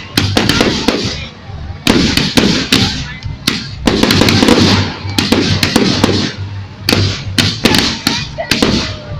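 Fireworks exploding overhead: rapid sharp bangs and crackles in four or five dense clusters, each trailing off in a crackling hiss, over a background of music.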